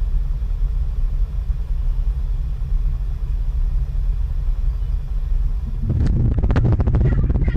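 A deep, steady rumble. About six seconds in, a room shaking in an earthquake takes over: a louder rumble with rapid rattling and knocking of the house and its contents.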